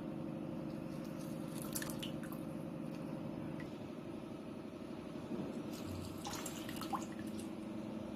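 Lemon juice dripping from a metal hand-press lemon squeezer into a steel bowl of juice, with a few small clicks, over a steady low hum.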